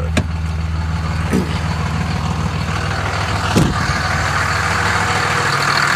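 Freshly rebuilt 5.9 Cummins common-rail turbo diesel idling steadily. A few short knocks cut through, the loudest about three and a half seconds in. The engine grows louder over the last couple of seconds as the recording comes closer to it.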